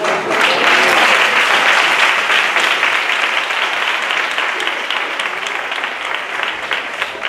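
Audience applauding: a full burst of clapping at the start that gradually thins out into scattered individual claps near the end.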